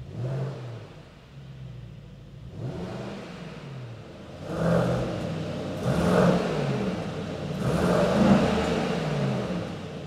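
Brabus-tuned Mercedes-Maybach GLS 800's 4.0-litre twin-turbo V8 revved repeatedly, each rev rising and falling in pitch, with the loudest revs in the second half.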